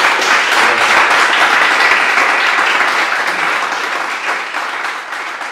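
Audience applauding at the end of a live acoustic song, a dense clapping that thins and fades away near the end.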